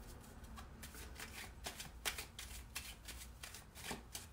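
A deck of tarot cards being shuffled by hand: a quiet, uneven run of small card clicks and flicks.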